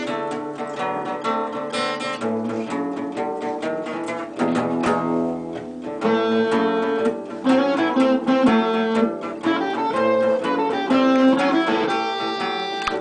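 Several guitars, mostly acoustic, played together, with picked notes and strummed chords running on without a break.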